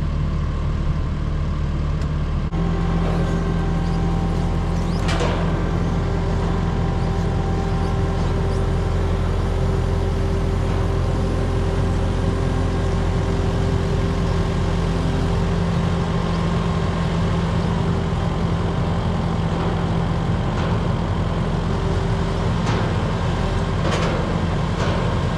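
Kubota SVL75-2 compact track loader's four-cylinder diesel engine running steadily under load as it lifts and carries a grain bin on its forks, the engine speeding up about two and a half seconds in. A few brief faint knocks come through near the start and near the end.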